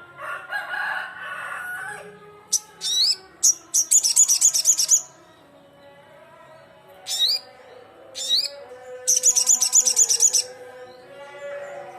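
Sogon (ruby-cheeked sunbird) singing loudly: a few sharp, very high rising notes, then a fast trill of about a second, repeated as a second phrase a few seconds later. Fainter, lower sounds run underneath, loudest in the first two seconds.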